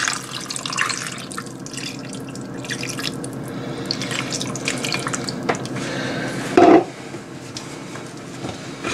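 Vegetable broth poured in a steady stream from a plastic measuring jug into a stoneware roasting dish, splashing over a pork roast and vegetables. A short, louder sound comes near the end.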